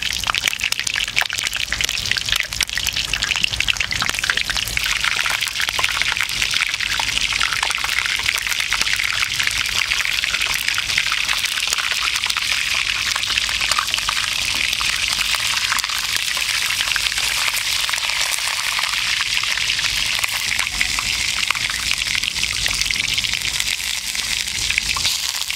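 Oil sizzling and crackling steadily around a whole chicken frying in a frying pan.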